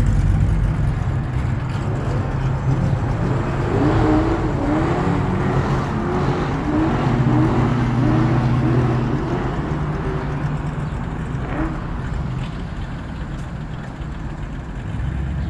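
Cars driving past on a street, their engines giving a steady low drone that rises and falls gently as they go by.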